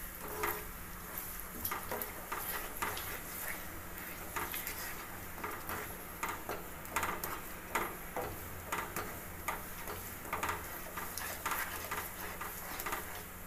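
A spatula stirring and scraping grated ash gourd around a non-stick pan, with irregular light clicks and knocks against the pan over a faint sizzle as the added sugar melts into the mixture.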